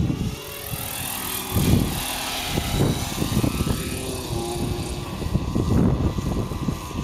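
Thunder Tiger Raptor 90 nitro RC helicopter, its main rotor and glow engine running as it comes down and settles on the grass. The high rotor hiss eases near the end.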